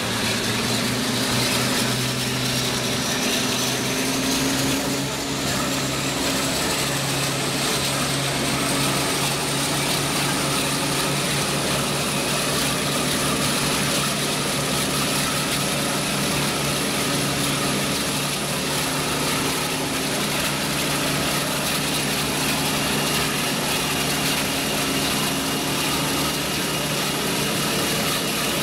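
Class 42 Warship diesel-hydraulic locomotive D821 under power: a steady low engine drone, with a high whine rising slowly in pitch as it gains speed.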